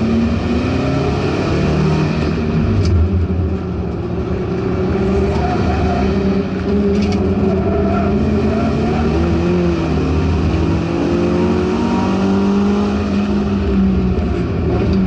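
Subaru STI race car's engine heard from inside the cockpit under racing load, easing through a corner and then pulling hard as the car gathers speed onto a straight. Two short sharp clicks come through, about three and seven seconds in.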